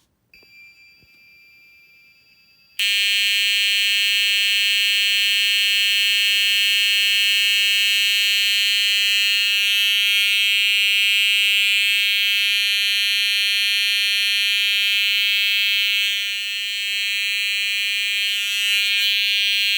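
Fire alarm system set off by a manual pull station, its horn sounding one continuous, steady tone with no pattern. It starts about three seconds in after a faint high tone, and cuts off suddenly near the end.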